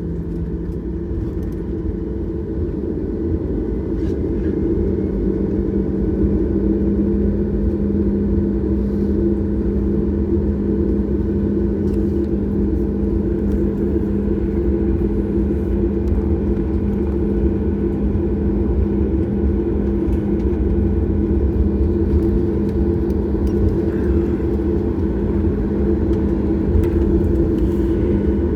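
Steady cabin noise of a Boeing 737 MAX 8 on the ground: its CFM LEAP-1B engines hum at low thrust over a constant low rumble, growing slightly louder a few seconds in.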